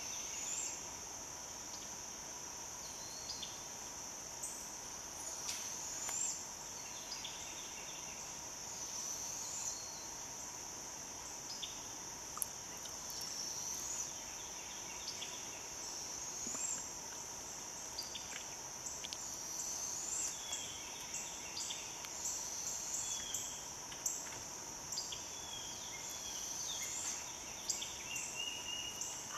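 Steady high-pitched drone of an insect chorus in the woods, with scattered short rising chirps, likely from birds, coming and going over it.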